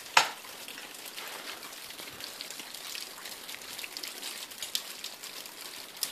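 Sharp strikes of an ice climber's tools biting into waterfall ice, a loud one about a fifth of a second in, smaller ones scattered through, and another near the end, over a steady pattering hiss.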